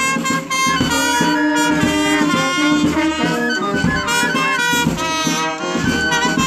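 Music with brass instruments playing held notes and melody lines over a beat.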